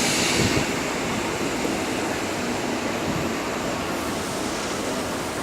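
Mark 3 passenger coaches of a locomotive-hauled intercity train rolling past on the rails, a steady even rolling noise.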